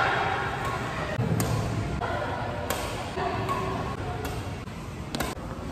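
Badminton rackets striking a shuttlecock, a few sharp hits spaced a second or more apart, two of them in quick succession near the end, with voices in the background.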